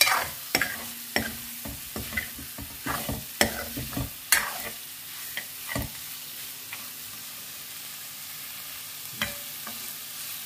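A metal spoon scraping and knocking against a hammered metal kadhai, stirring minced buffalo meat frying in it over a steady sizzle. The meat is at the dry-frying stage, its water cooked off. The stirring stops about six seconds in, leaving only the sizzle, with one more knock near the end.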